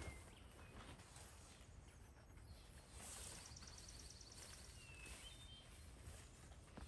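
Quiet outdoor ambience with faint bird calls: a rapid high trill about three seconds in, then a couple of short chirps about two seconds later.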